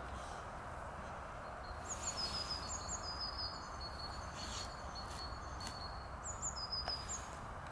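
Steady outdoor background hiss with a small bird chirping in quick, high, repeated notes, in one spell about two seconds in and another near the end.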